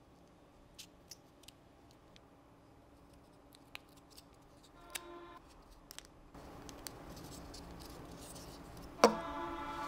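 Small, sparse clicks and taps of laser-cut plywood parts being pressed and turned together by hand as a wooden wheel hub is seated, with a louder click about nine seconds in.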